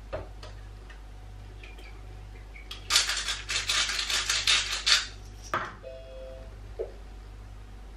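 A few light metal clinks from a spoon scraping a tin, then a pepper mill grinding in quick crunchy turns for about two seconds over the food processor bowl. A knock as the lid goes on, followed by a short electronic beep from the Monsieur Cuisine food processor's touchscreen.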